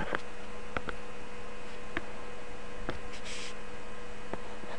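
Steady electrical hum with a few scattered light clicks, a stylus tapping on a tablet screen as the pen tool is chosen, and a brief hiss about three seconds in.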